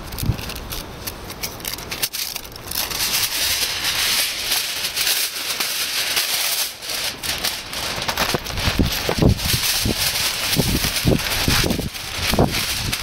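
Kitchen aluminium foil unrolled and handled, crinkling and crackling, then greaseproof paper unrolled over it, rustling.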